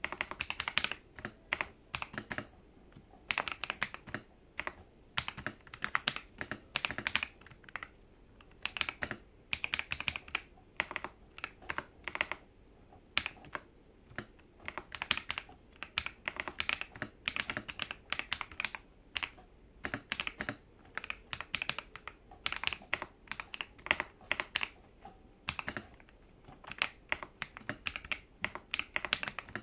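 Typing on an FL eSports Q75 mechanical keyboard with Akko CS Ocean Blue switches lubed with Krytox 205g0, PE foam and tape mods and a silicone damping mat, and cherry-profile keycaps. Quick runs of keystrokes come in bursts with short pauses between them.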